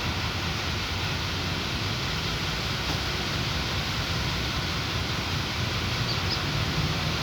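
Steady outdoor background noise: a low rumble under an even hiss, swelling slightly near the end.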